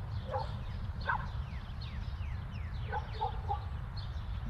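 Outdoor ambience: birds calling, many short calls that fall in pitch, over a steady low rumble, with a few short lower animal calls now and then.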